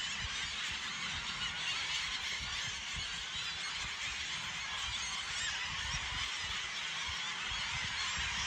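A huge flock of gulls calling all at once: a dense, continuous chorus of overlapping cries, with an irregular low rumbling underneath.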